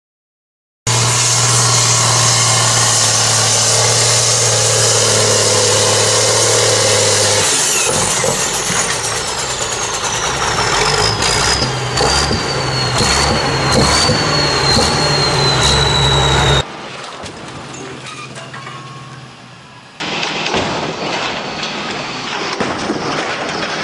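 Tractor engines running loud in several clips cut one after another. In the first, a steady engine drone gives way about seven seconds in to a high whine that falls in pitch over several seconds, with scattered clicks.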